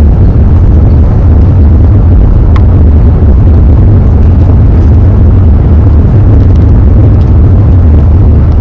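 Wind buffeting the microphone: a loud, steady, deep rumble with no pitch to it.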